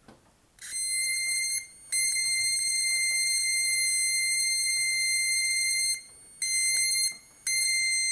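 Homemade high-voltage igniter, about 100,000 volts, sparking at the eye screw of a homemade ion engine: a steady high-pitched buzz. It starts about half a second in and cuts out and back on three times, in four stretches.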